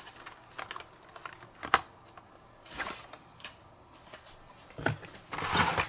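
Plastic blister-card toy-car packages being handled, with scattered light clicks and taps of plastic and card, a sharper click about two seconds in, and a louder rustling, sliding sound near the end as packs are pulled out of a cardboard box.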